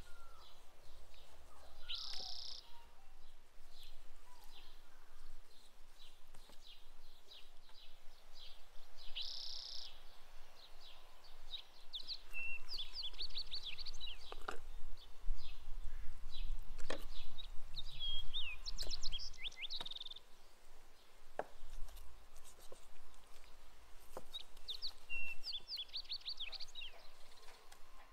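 Small birds chirping and trilling over and over, with a few sharp knocks of a knife cutting through raw rabbit onto a wooden cutting board.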